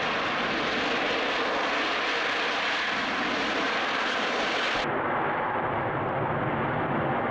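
Antonov An-124-100's Progress D-18T turbofan engines running steadily as the heavy freighter rolls along the runway, a loud even roar. A little over halfway through, the sound abruptly turns duller as the high hiss drops away.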